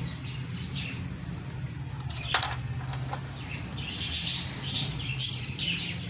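Budgerigars chirping: one call about two seconds in, then a run of short, high chirps from about four seconds in, over a steady low hum.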